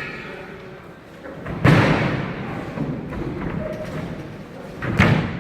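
Two heavy thuds of wrestlers slamming onto the wrestling ring canvas, about a second and a half in and again near the end, each echoing in a large hall.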